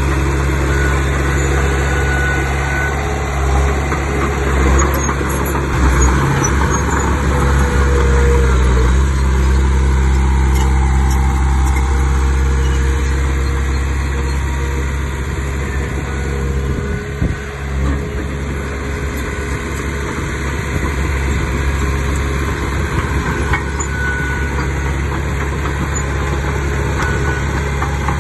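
Heavy diesel earthmoving machinery running steadily at a low, even engine note, with a few knocks about seventeen seconds in.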